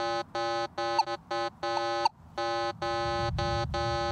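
Minelab Manticore metal detector giving its target tone over a gold coin: a buzzy beep of one steady pitch, repeated about twice a second as the coil is swept back and forth, with a short break about two seconds in. A low rumble runs underneath in the second half.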